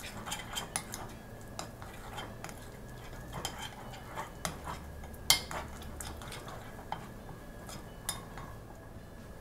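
Metal spoon stirring and scraping a thick spice paste in a ceramic bowl, with irregular clinks of the spoon against the bowl; one louder clink about five seconds in.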